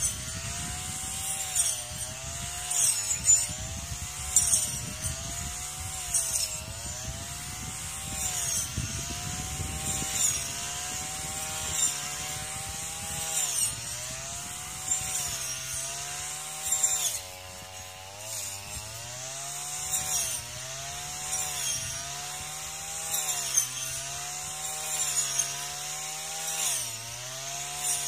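Brush cutter engine running at cutting speed, its pitch dipping and recovering every second or two as the head sweeps side to side through grass and weeds. Each sweep brings a high swish of cut vegetation. The engine eases off briefly about two-thirds of the way through.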